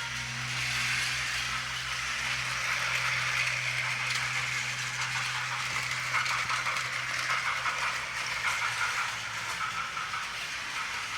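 Battery-powered toy trains running on plastic track: a steady small-motor hum with the wheels rattling along the track. The rattle turns into more distinct fast clicking over the track joints about halfway through.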